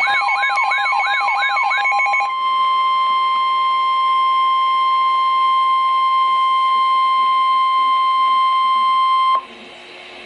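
NOAA Weather Radio alert tones: for about two seconds a sweep rises over and over, about five times, over steady tones. Then the single steady 1050 Hz warning alarm tone holds for about seven seconds and cuts off abruptly. The tone signals that a warning message follows.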